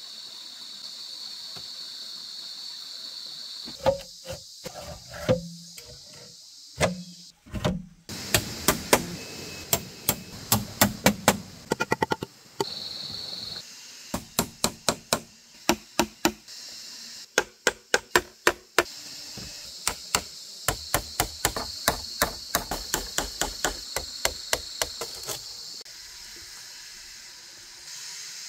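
Repeated sharp strikes of a hand tool in runs of several blows, about three to four a second, with a few duller thumps near the start, over a steady high hiss.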